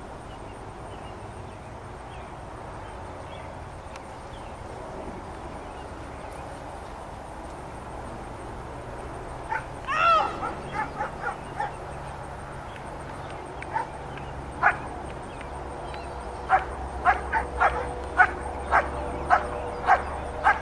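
German Shepherd barking at a protection helper in Schutzhund work. The barking starts about halfway in with a cluster of sharp barks, then after a pause settles into a steady run of loud barks, about one and a half a second, near the end.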